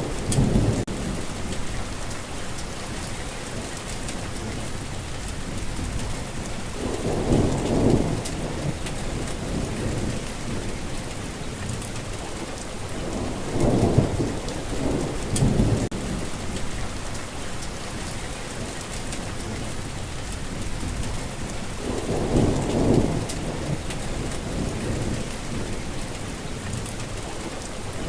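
Heavy rain falling steadily, with low rolls of thunder rumbling up and fading every several seconds.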